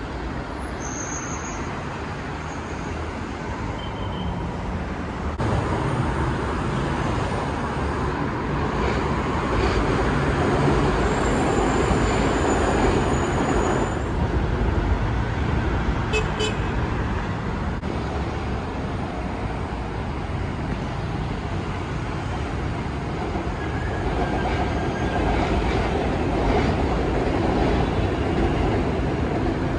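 Road traffic on a busy multi-lane city road: a steady rush of passing cars and buses.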